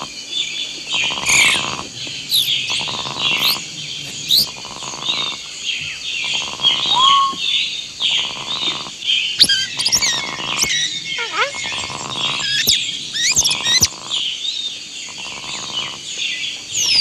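A chorus of small birds chirping and twittering, with a lower call repeating about every second and a half underneath.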